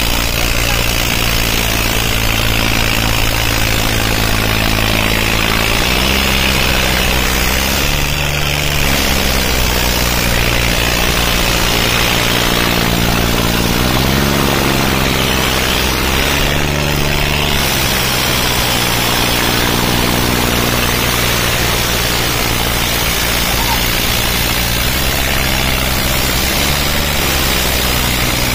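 Diesel tractor engine running hard under heavy load as it drags a loaded trailer through soft soil, its pitch dipping and rising several times as the load and throttle change.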